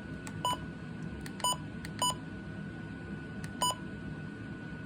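Four short electronic beeps at uneven intervals, each just after a soft click, like buttons being pressed on a device, over a faint steady high tone and low hum.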